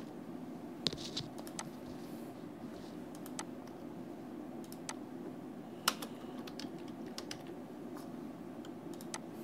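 Typing on a computer keyboard: scattered, irregular keystrokes, with a couple of louder clicks, over a faint steady hum.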